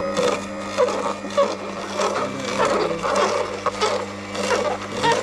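Aicok horizontal masticating slow juicer running with a steady motor hum while its auger crushes celery stalks, giving irregular cracking and crunching.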